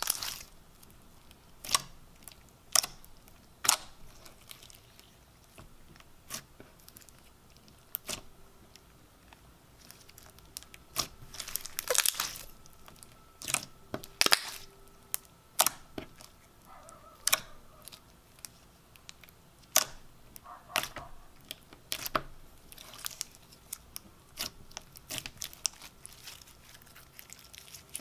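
Fishbowl-bead slime being pressed, squeezed and stretched by hand: irregular crunching and crackling clicks from the plastic beads, bunching up in the harder squeezes.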